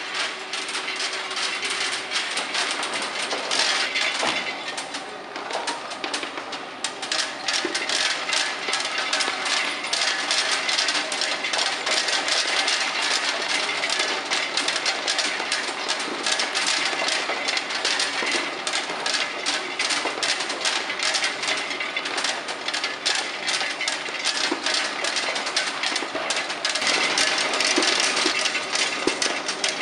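Hard sweets clattering through a running sweet grading machine: a dense, continuous rattle of many small clicks as the pieces tumble over its rotating spiral rollers and drop into the bin.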